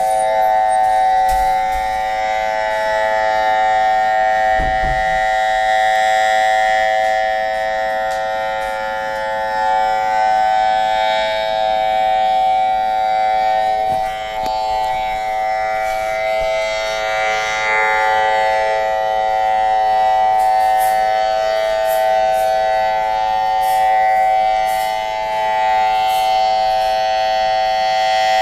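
AL-6000R outdoor warning siren sounding a steady tone at full speed, several pitches held together, its loudness swelling and fading slowly.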